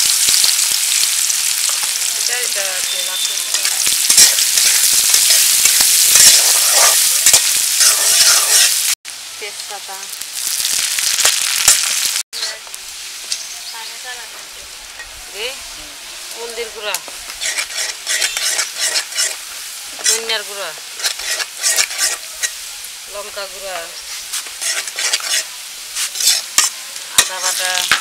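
Sliced onions sizzling loudly in hot oil in an aluminium karahi. After about twelve seconds the sizzle is quieter, as the onions fry down while a metal spatula scrapes and turns them, with frequent sharp clicks of metal on the pan.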